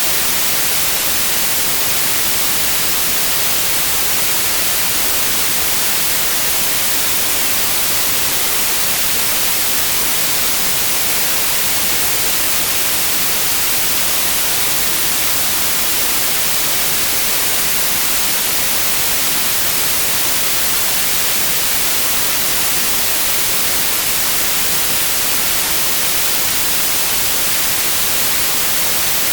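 Steady synthetic white noise: an even, unchanging hiss across all pitches.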